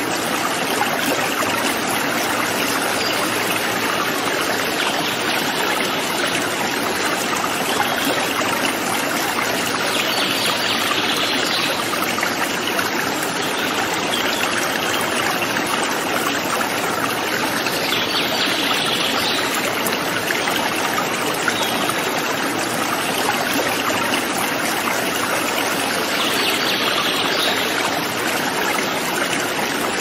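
Steady rush of running water in a small swampy forest stream. A faint high hiss rises over it for a second or so about every eight seconds.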